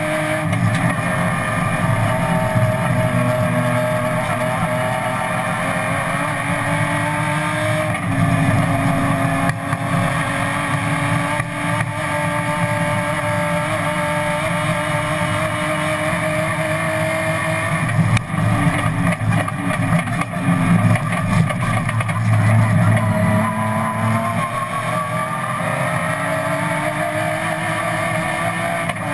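BMW M3 race car's engine heard from inside the stripped cockpit, running hard under racing load, its pitch climbing and stepping with gear changes. About two-thirds through the revs fall in a rougher, uneven stretch, then climb again.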